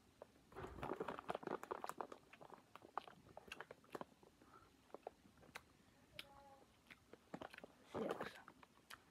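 A person chewing a sour Starburst gummy candy with the mouth partly open, making many small smacking clicks. The clicks are heaviest in the first two seconds and again near the end.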